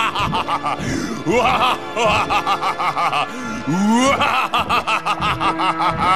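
Cartoon monster's drawn-out evil laugh: a rapid run of 'ha-ha' syllables, with a rising swoop in pitch partway through, over background music.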